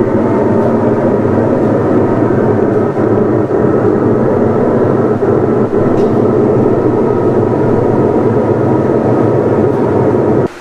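Fair PA system with 15-inch Eminence speakers playing music at high volume. The sound is thick and heavy in the low mids, cutting off abruptly at the very end.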